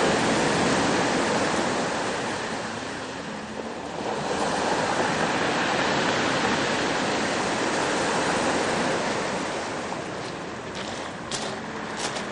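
Ocean surf on the shore: rushing water noise that swells and fades twice, each wave building and dying away over several seconds.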